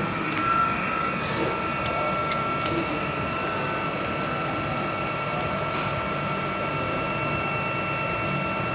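Haco PPM 135-ton CNC hydraulic press brake running: a steady mechanical hum with a constant high whine, and a few faint ticks.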